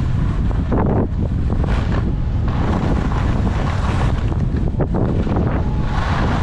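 Wind buffeting a skier's camera microphone on a fast downhill run, a constant low rumble, with the skis hissing and scraping over packed snow; brief louder scrapes come about a second in and again near five seconds.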